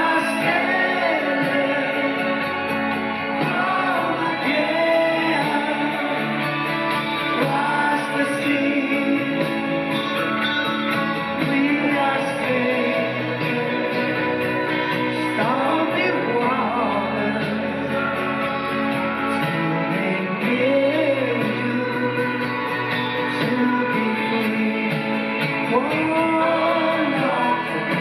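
Live band playing a rock song with guitar and lead singing, recorded at a concert.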